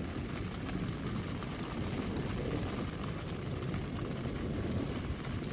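Storm heard from inside a tent: wind and rain against the tent make a steady low rumbling rush.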